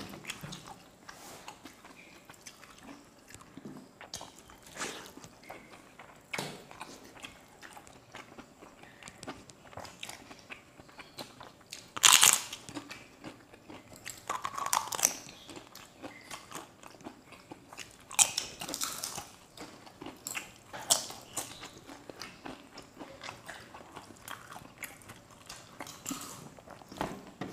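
Crisp papad being bitten and crunched close to the microphone, with chewing in between. Sharp crunches come every few seconds, the loudest a little after the middle.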